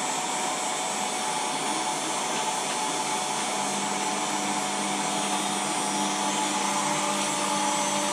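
Hair dryer running steadily on its low (number one) setting, blowing warm air onto a vinyl drone wrap to soften it so it moulds around the plastic.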